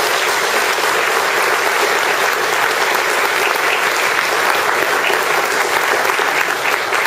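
Lecture-hall audience applauding steadily, a dense patter of many hands clapping at once, fading out about a second after it ends.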